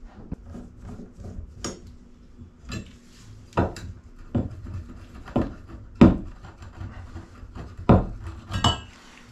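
Irregular sharp metallic clicks and knocks, roughly one a second, as a screwdriver works the mounting screws of a metal grab handle on a wooden door frame. One knock near the end rings briefly.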